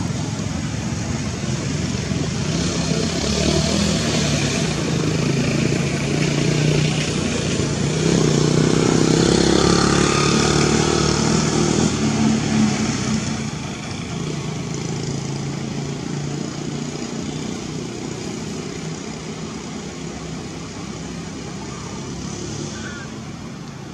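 Motor vehicle engine running, growing louder to about ten seconds in and then fading away as it passes.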